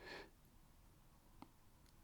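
A man sobbing: a short, breathy sobbing gasp at the very start that fades quickly, then a faint wet mouth click about a second and a half in.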